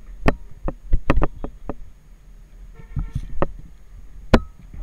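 About ten irregular sharp knocks and thumps of footsteps and camera handling as a person walks across a dry dirt bank; the loudest come about a second in and near the end.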